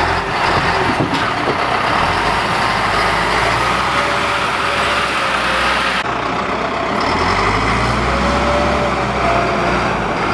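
Heavy truck engine running steadily close by. The high hiss on top drops off abruptly about halfway through.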